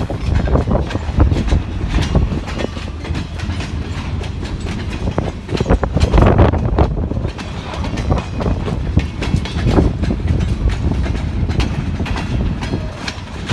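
Freight cars of a long train rolling past, steel wheels clacking over the rail joints in an uneven run of knocks, with strong wind buffeting the phone's microphone.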